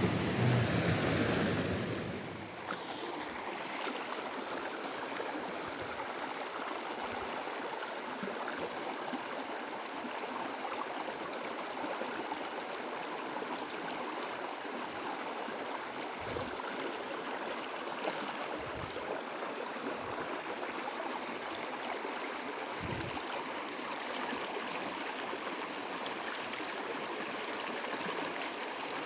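Shallow village stream flowing steadily over stones, an even rushing and babbling of water.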